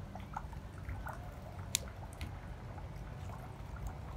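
Pond water dripping and trickling off a water soldier plant just lifted out of the pond, a few sharp separate drips over a low steady rumble.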